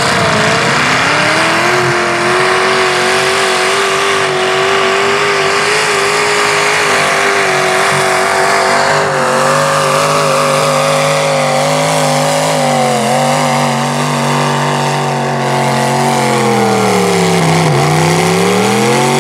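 Lifted mud bog truck's engine held at high revs, wide open, as the truck plows through a deep mud pit, with mud and water spraying and hissing under it. Near the end the revs dip briefly and climb back up.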